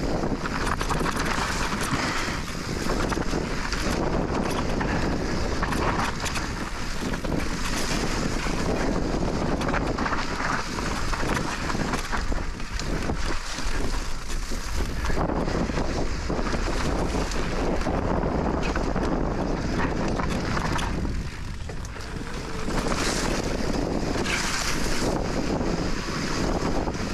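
Wind rushing over the microphone as a Specialized Turbo Levo e-mountain bike rolls along a rocky trail, with many small clatters and knocks from the tyres and bike. The noise eases briefly about twenty seconds in.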